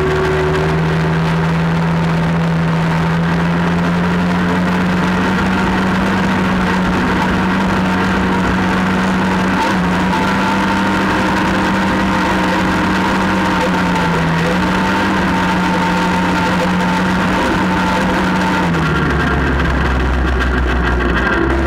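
All-terrain vehicle engine running at a steady pitch while under way, with a slight dip about two-thirds of the way through; near the end the pitch drops as the throttle eases off.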